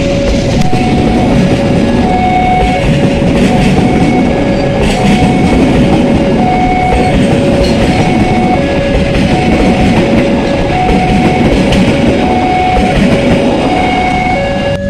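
Passenger train carriages passing close by at speed, with a loud, steady rush of wheels on the rails. A two-note tone, alternating low and high, repeats evenly over the train noise.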